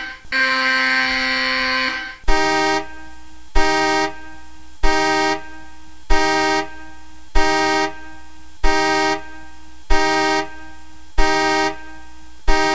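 Electronic alarm tone from a PC alarm-clock program: a steady, rich buzzing tone for about two seconds, then a horn-like beep repeating about every 1.3 seconds, nine times.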